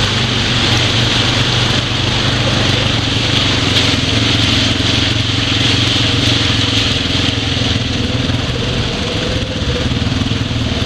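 ATV engine running at a steady pitch, with no revving.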